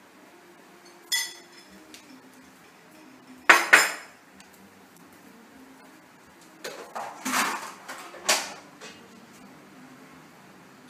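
Hard objects clattering and clinking in short bursts: a small ringing clink about a second in, a loud clatter about three and a half seconds in, and several more clatters between about seven and eight and a half seconds.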